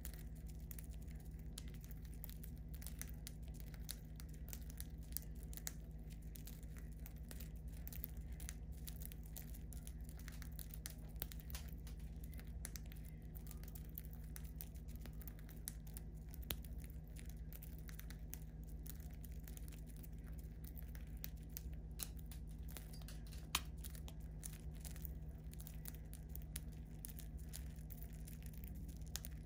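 Budgerigars cracking and husking seeds with their beaks: a steady run of tiny, irregular clicks and crackles, with one sharper click about 23 seconds in, over a steady low hum.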